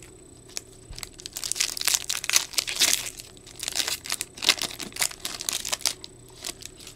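Foil wrapper of a 2024 Bowman Baseball card pack being torn open and crinkled by hand. It makes a run of irregular crackling crinkles that starts about a second in and dies away near the end.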